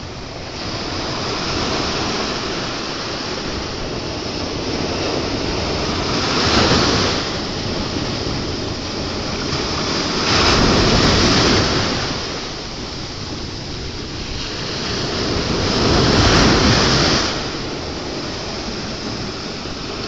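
Ocean waves breaking and washing onto a shore: a steady hiss of surf that swells to a louder crash three times, about a third of the way in, around the middle, and near the end.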